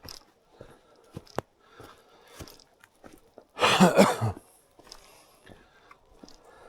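Footsteps crunching on a wet path at an even walking pace, with scattered small clicks. A short, loud, breathy burst lasting under a second comes about three and a half seconds in.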